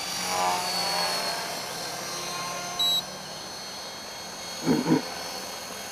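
Electric T-Rex 450 RC helicopter flying, the whine of its motor and rotor shifting in pitch as it manoeuvres, falling in pitch over the first second or so. A brief high beep comes about three seconds in.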